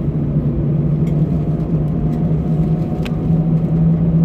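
Airbus A320-214 takeoff roll heard from inside the cabin: the CFM56-5B engines run steadily at takeoff thrust with a strong low hum, over the rumble of the wheels on the runway. A faint higher tone rises slightly through the middle, and a few faint clicks come through.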